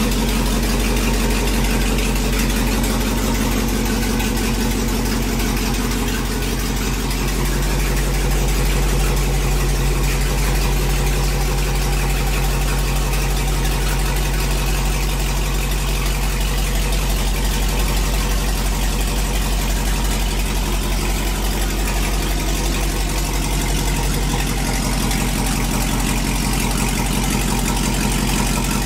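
LS V8 engine of a pickup truck running steadily near idle at low speed.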